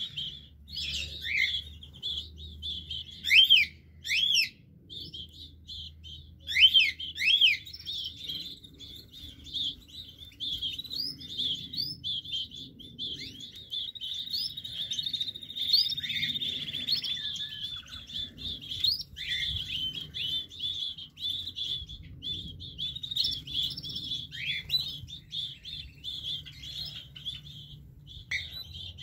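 Small songbirds in a canary aviary chirping and twittering without pause. There are several loud down-slurred calls in the first eight seconds and a long trilled song about halfway through.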